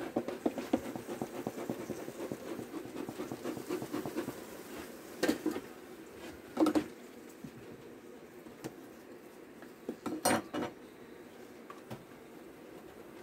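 Wooden hive frames clicking and knocking as they are handled and shifted, over the buzz of honeybees from the open hive. The clatter is dense for the first few seconds, then comes as a few separate knocks.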